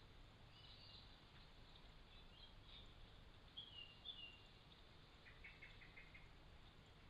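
Faint bird chirps and short falling whistles, with a brief quick run of ticks a little past the middle.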